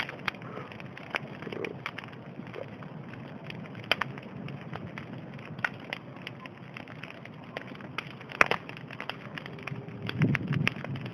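Bonfire crackling, with irregular sharp pops over a low hiss and one louder pop about two-thirds of the way through.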